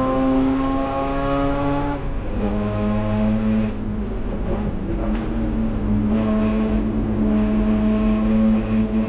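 Mazda RX-8's two-rotor rotary engine under hard acceleration, rising in pitch, with a drop in revs about two seconds in like a gear change. Its note turns rougher for a couple of seconds midway, then it pulls steadily again.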